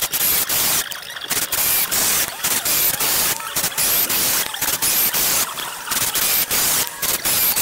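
Makita 6093D 9.6 V cordless drill driving and backing out a 2-inch wood screw, the motor running in repeated spurts with brief pauses between them.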